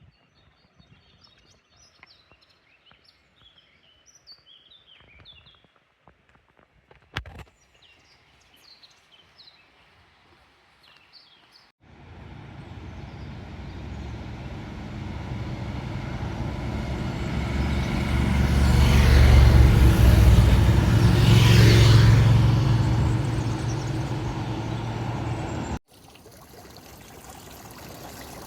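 Faint bird chirps, then a motor vehicle passing by: its engine sound swells to a loud peak and fades away. Near the end, running water of a stream.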